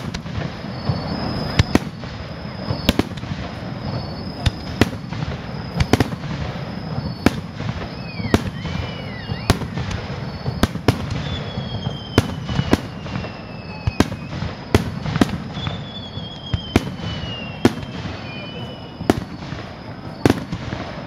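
Fireworks display: aerial shells bursting in a steady series of sharp bangs, one or two a second. Through the middle, several whistles glide down in pitch.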